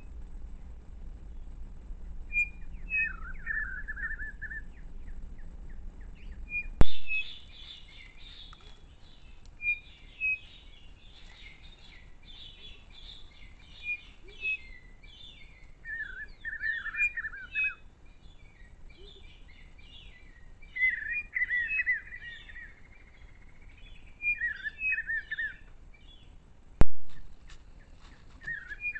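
Wild birds calling: repeated short high notes and brief trills, with a denser chorus of chirping from about 7 to 25 seconds in. Two sharp clicks, about 7 seconds and 27 seconds in, are the loudest sounds.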